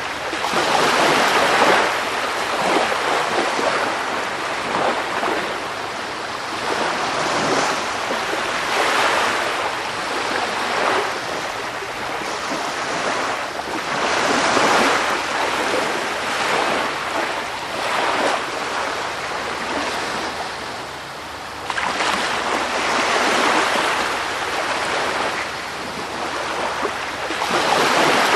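Sea waves washing onto a shore: a continuous rushing surf that swells and falls away every few seconds, with a short lull about three-quarters of the way through.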